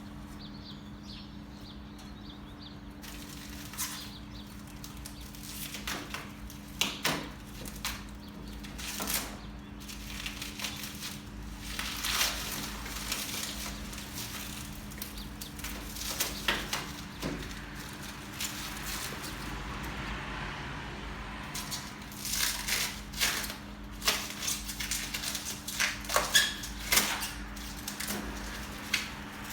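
Unpacking noises from a new mower's packaging and parts being handled: irregular rustles, clicks and knocks, some sharp and louder, over a steady low hum.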